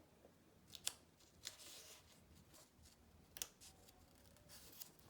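Faint paper rustling and a few light clicks of a picture book's pages being handled and turned.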